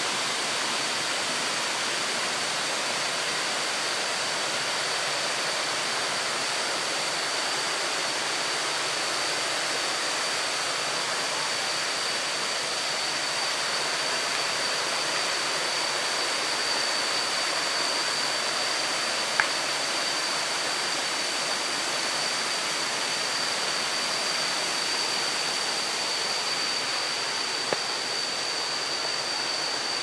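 Steady rushing of waterfall cascades, with a thin, steady high whine over it. Two sharp clicks, about two-thirds of the way in and near the end.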